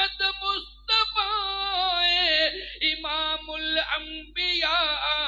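A man singing a naat, an Urdu devotional poem praising the Prophet, unaccompanied through a microphone and loudspeakers. He draws out long wavering notes, with a few short breaks for breath.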